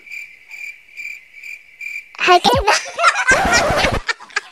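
Cricket-like chirping, an even high pulsing trill that starts and stops abruptly, cutting off about two seconds in. After that, laughter and a woman's voice beginning a greeting take over.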